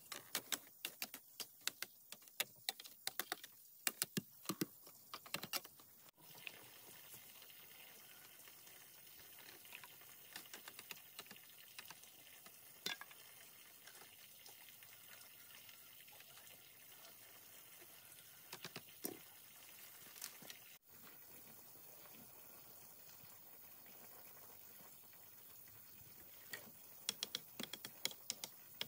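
Light clicks and taps of thin bamboo strips being trimmed with a knife and woven around a frame of bamboo stakes. The clicks come in quick clusters for the first few seconds, thin out through the middle and cluster again near the end, over a faint steady hiss.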